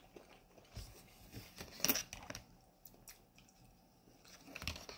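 A person chewing a mouthful of tough chickpeas and rice, heard as soft wet mouth clicks with one louder crunch about two seconds in.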